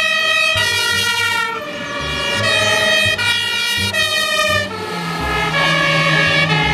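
German fire engines' two-tone sirens (Martinshorn), alternating between a high and a low note. About five seconds in, a second siren overlaps out of step, over a low steady tone.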